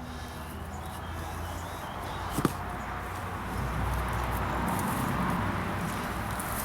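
Rustling and scraping of hands digging through soil to pull up potatoes, growing louder in the second half, with one sharp click about two and a half seconds in.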